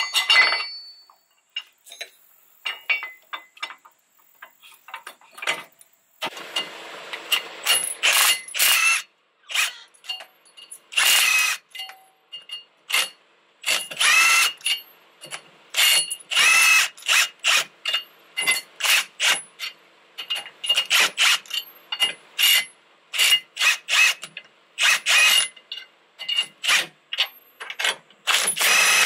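Milwaukee M18 Fuel cordless impact wrench run in many short trigger bursts, spinning a nut on a suspension fastener. The first few seconds hold only scattered short clicks.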